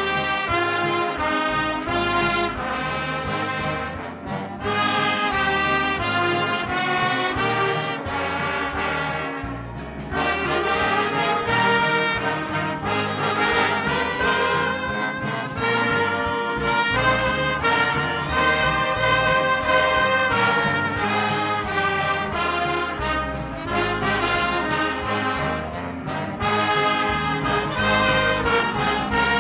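Brass ensemble of trumpets and trombones playing a piece in full, held chords, with short breaks between phrases about 4 and 10 seconds in.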